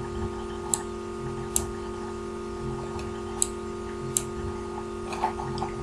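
Computer mouse clicking several times at uneven intervals, a few in quick succession near the end, over a steady low electrical hum.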